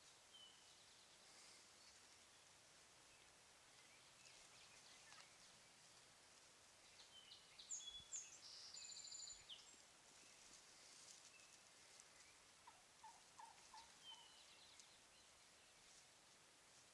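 Faint bird calls in otherwise near silence: high, short chirps and a brief buzzy trill from songbirds about halfway through, then a short series of lower notes from a distant wild turkey calling.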